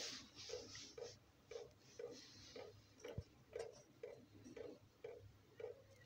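Near silence: faint room tone with a soft, regular pulse about twice a second.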